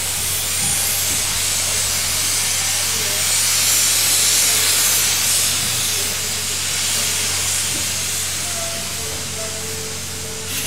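Steam locomotive venting steam: a loud, steady hiss that swells about three to five seconds in and then eases off.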